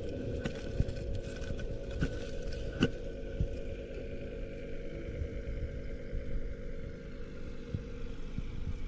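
A steady low motor-like hum, with scattered clicks and scrapes of handling.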